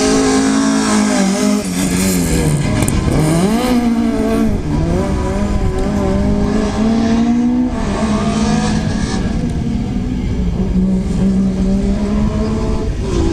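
Rally car engine running at a high, steady idle. About two to four seconds in the revs dip and climb again under the throttle, then the engine settles at a slightly lower, steady note.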